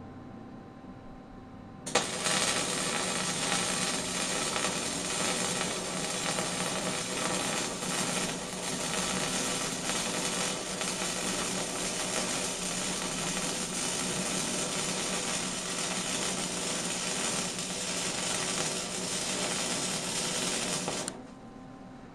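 Wire-feed welder running one continuous bead on a trike frame gusset. The arc strikes with a sharp crack about two seconds in, crackles and sizzles evenly for about nineteen seconds, then cuts off abruptly near the end.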